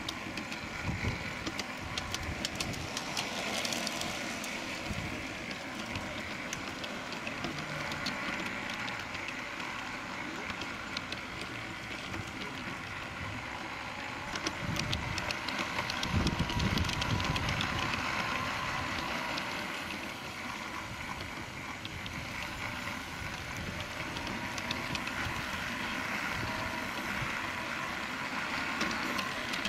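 A 16mm-scale live steam garden-railway locomotive running along the track, heard from on board: a steady steam hiss and rumble with rapid, uneven clicking of wheels on the rails. The sound grows louder about halfway through.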